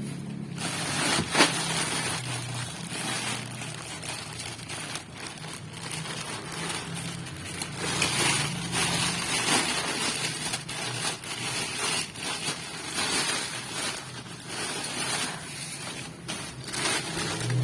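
Packaging being handled: irregular rustling and crinkling with many small clicks and knocks, over a faint steady low hum.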